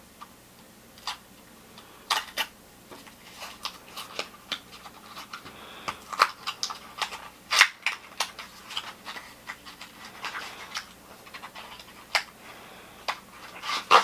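Small paperboard retail box being opened by hand: irregular light clicks, snaps and rustles as the end flap and tab are worked loose and the contents slid out.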